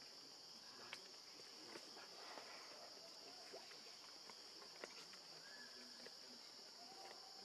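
Faint, steady high-pitched drone of insects, with a few soft scattered clicks.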